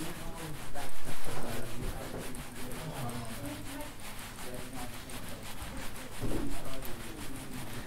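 Repeated rubbing or scraping, made up of many quick strokes, with louder stretches about a second in and again near the end.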